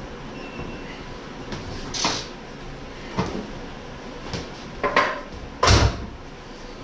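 Scattered knocks and clunks of metal parts and tools being handled while a master cylinder is fitted to a brake booster: four sharp knocks, the loudest near the end.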